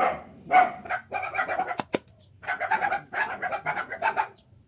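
A dog barking repeatedly in two quick runs, with two sharp knocks just before the pause between them.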